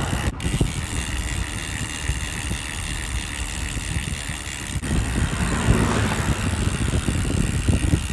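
A motor vehicle's engine running steadily, with street noise; the sound drops out for an instant twice, once just after the start and again a little before five seconds in.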